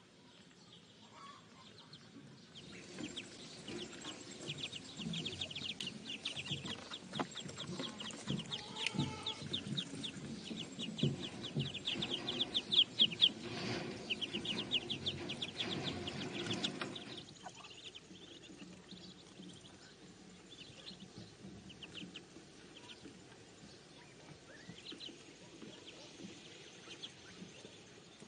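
A group of ducklings peeping, many short high peeps in quick succession. The peeping is busiest through the first half and thins out after about seventeen seconds.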